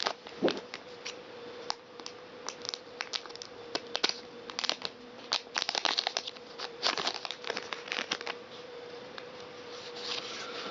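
A Pokémon card booster pack's wrapper crinkling and crackling as it is opened, a run of quick rustles that is densest in the middle, over a faint steady hum.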